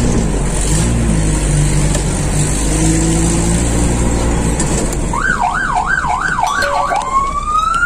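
A vehicle's engine and road rumble as it moves along, then about five seconds in an electronic emergency siren of a fire-rescue vehicle starts with a fast up-and-down yelp, about three swings a second, and near the end switches to a rising wail.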